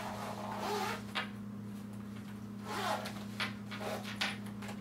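Zipper on a zippered batting-glove case being pulled open around its edge, in a longer pull at the start and several shorter pulls near the end.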